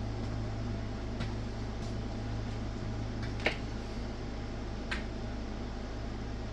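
Steady low electrical hum with three light clicks, about one, three and a half and five seconds in, the middle one the loudest: a probe and objects being handled on the bench.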